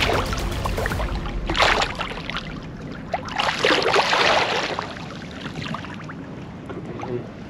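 Large Wels catfish thrashing at the surface beside the boat, throwing up water in a few loud splashing bursts, the biggest about two and four seconds in.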